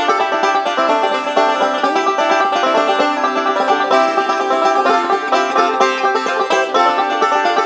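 Background music: a bright, quick banjo-led bluegrass tune with plucked strings.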